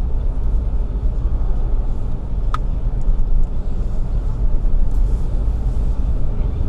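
Steady low rumble of a car driving, road and engine noise heard from inside the cabin, with one brief sharp click about two and a half seconds in.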